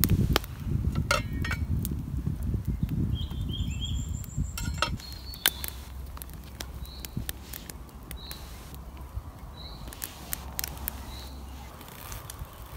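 A small wood campfire crackling, with sharp pops scattered throughout and a low rumble in the first few seconds. In the second half a bird gives short chirps about every second and a half.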